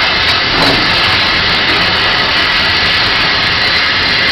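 Steady, loud hiss of steam from the LBSC Terrier 0-6-0 tank locomotive Fenchurch, standing at rest.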